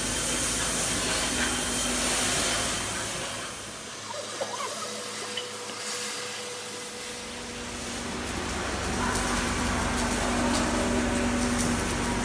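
Steady hissing machine noise in a steel fabrication shed, with a low hum underneath. It grows quieter for a few seconds in the middle, then returns.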